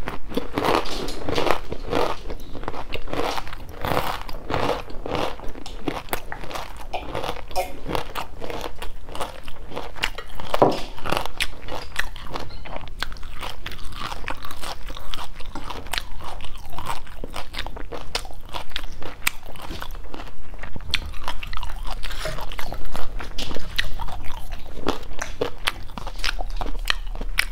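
Close-miked crunching and chewing of freshly deep-fried shrimp and pork wontons, the crisp fried wrappers crackling with each bite. The crunching is densest in the first few seconds, then settles into quieter chewing.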